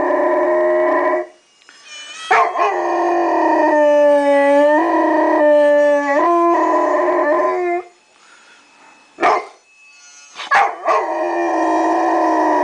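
Golden retriever howling along to harmonica music in long held notes that bend up and down in pitch. It breaks off briefly about a second in, then again for a couple of seconds near the end, with a couple of short yelps before the howling starts up again.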